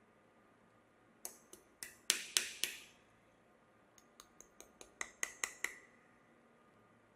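Two quick runs of sharp clicks or taps, about six and then about nine, some ringing briefly.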